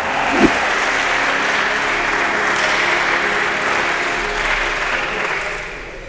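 Crowd applauding, with a single thud about half a second in; the applause dies down near the end.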